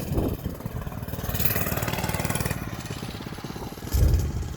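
A minibike's small 3.5-horsepower single-cylinder engine running and revving with a fast, even putter. There is a sudden loud low thump about four seconds in.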